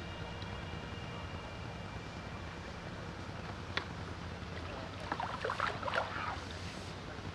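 Steady low wind rumble on the microphone, with a single click a little past the middle and a brief flurry of small irregular sounds about five seconds in.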